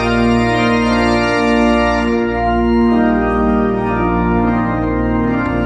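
Organ playing slow, sustained chords that shift every second or so.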